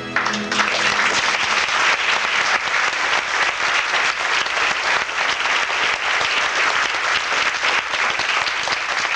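Audience applauding steadily as the last held music chord stops right at the start.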